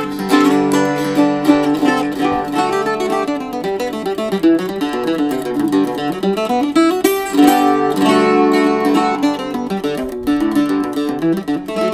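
Bulas octave mandolin played with a pick: an unbroken passage of picked notes and chords in its low register.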